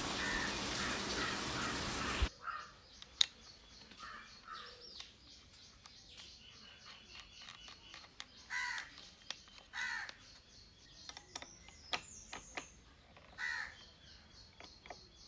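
A steady hiss that cuts off suddenly after about two seconds, then a quiet stretch where birds give about five short calls, spread out, with scattered light clicks of metal parts being handled as a grinding disc and flange nut are fitted to an angle grinder.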